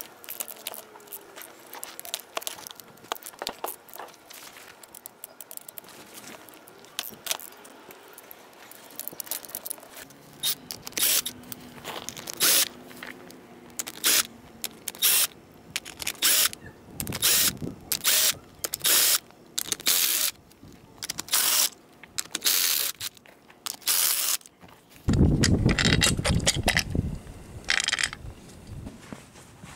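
Light clicks and scrapes of hand tools on a lawn tractor transaxle. A cordless drill-driver then backs out the case bolts in short spurts, about one a second. Near the end comes a louder stretch of low metal handling noise as the transaxle case is split apart.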